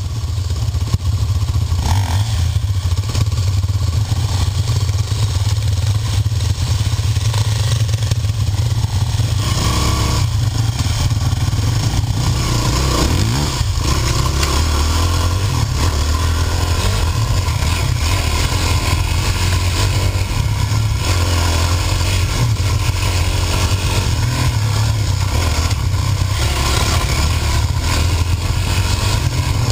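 Dirt bike engine running close to the camera: steady at first, then revving and pulling away about ten seconds in, with rising and falling revs and clatter as the bike rides over a rough, muddy forest trail.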